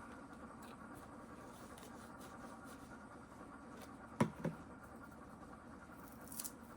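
Quiet room with a steady faint hum, broken by two light knocks in quick succession about four seconds in and a small tick near the end.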